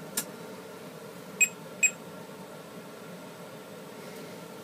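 A sharp click of the Commodore 64's power switch being flipped on, then two short high electronic beeps about half a second apart.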